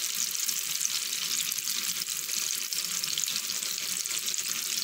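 Kuzhi paniyaram (idli batter balls) frying in hot oil in the wells of an unniyappam pan: a steady, fine crackling sizzle. The batter is still pale on the first side, before turning.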